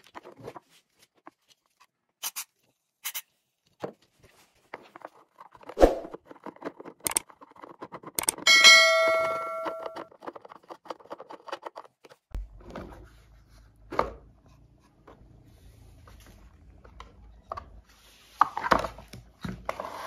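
Hands and a screwdriver working on a vacuum cleaner's plastic housing: scattered clicks and knocks of tool on plastic, with a brief metallic ring about eight seconds in. Louder plastic knocks and clatter near the end as the casing is pulled apart.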